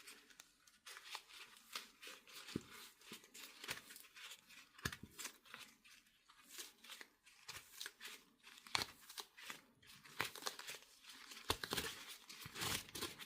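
Pleated paper element of a used fuel filter being pulled apart and unfolded by hand: faint, irregular crinkling and crackling of the stiff folds, with small clicks throughout.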